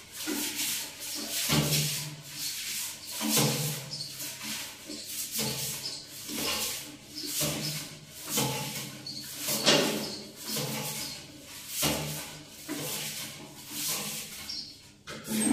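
Toilet brush scrubbing the inside of a toilet bowl in repeated brisk strokes, roughly one a second.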